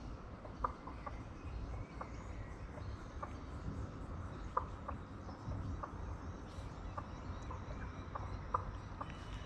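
Wind rumbling on the microphone outdoors, with a dozen short, sharp ticks at irregular intervals of roughly half a second to a second.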